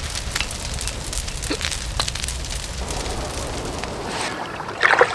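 Wood campfire crackling, with scattered pops and one louder short burst near the end.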